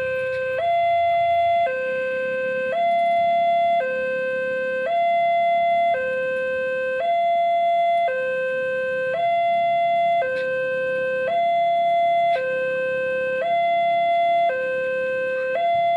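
Railway level-crossing alarm sounding its two-tone electronic warning: a lower and a higher tone alternating, each held about a second, the higher one slightly louder. It is the crossing's signal that the barrier is down and a train is approaching.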